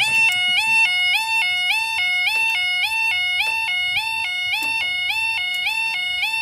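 Level crossing warning alarm sounding its two-tone yodel, a higher and a lower note alternating about twice a second, as the barriers come down.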